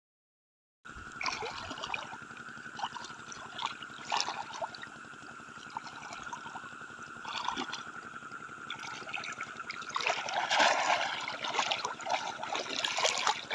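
Shallow water splashing and sloshing in irregular bursts as someone wades through a wetland, louder near the end, over a steady high-pitched tone.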